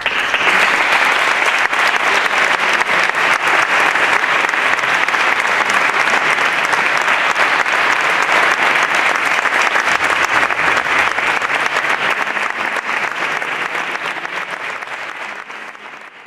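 Audience applauding steadily as a brass band's march ends, the clapping fading out near the end.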